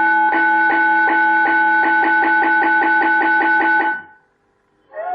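An automatic school bell system plays its recorded traditional bell sound: a metal bell struck over and over, each stroke ringing on. The strokes quicken to about five a second, then stop about four seconds in. Flute music starts just at the end.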